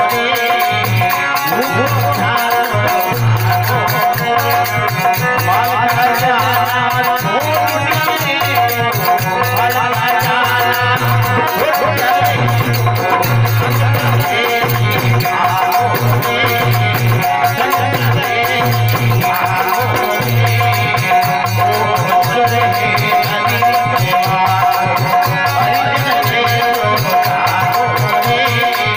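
Live Rajasthani folk bhajan: a male voice sings over a steady harmonium and a dholak beat.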